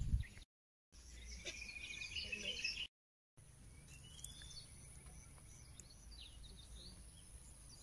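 Wild birds chirping and calling, with a rapid trill from about one and a half to three seconds in. The sound cuts out completely twice in the first few seconds.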